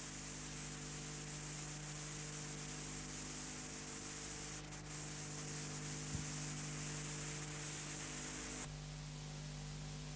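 Steady hiss and low electrical hum from a videotape playback with no music or voices; the hiss drops a little near the end.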